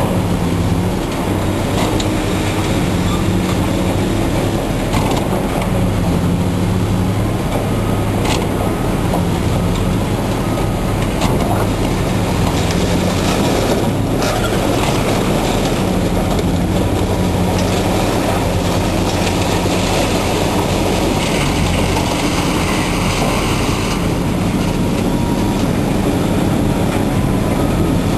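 Heavy diesel scrap-handling machinery running steadily under load, with scattered sharp cracks and metal squealing as a truck body is torn apart for scrap.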